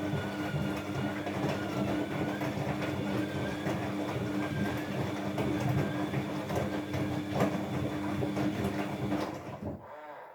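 Washing machine drum turning at speed, its motor giving a steady whine over a continuous scraping, squealing rub. It stops suddenly near the end. The owner wonders whether the drum bearing or the bearing washer is at fault.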